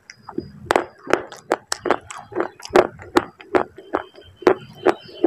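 Close-miked chewing of baked clay pieces: a steady run of crisp crunches, about two or three a second.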